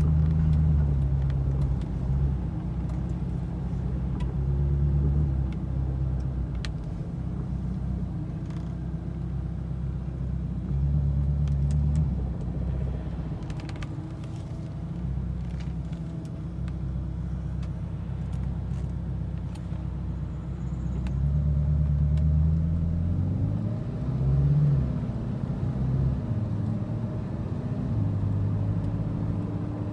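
Ferrari 458 Italia's V8 running at low revs, its low hum swelling and easing every few seconds, with a brief rise and fall in pitch a little after the middle and faint scattered clicks.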